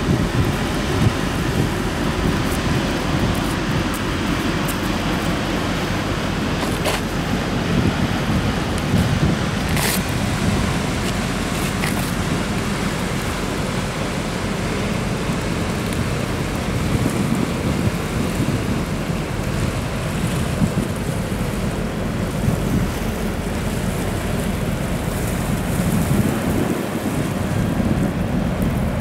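Steady low rumble from a passing container ship mixed with wind on the microphone, with a few faint clicks.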